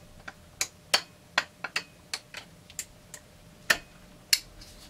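Metal hand tools, needle-nose pliers and a large open-end wrench, clicking and clinking against a Husqvarna 350 chainsaw's clutch. About a dozen sharp, irregular clicks.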